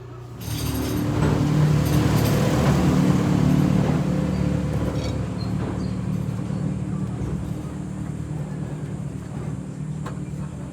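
An engine running: it comes in suddenly about half a second in, is loudest for the next few seconds, then slowly fades.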